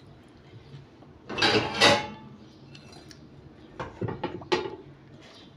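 Cutlery clinking against dishes during a meal: a short clatter about a second and a half in, then a few sharper clinks around four seconds.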